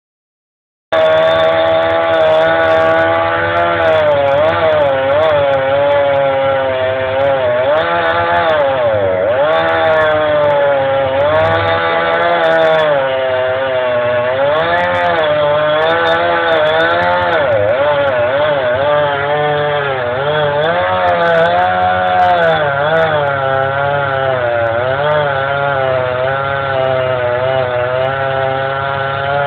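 Chainsaw engine running steadily at high revs, its pitch repeatedly dipping and rising again as the load changes.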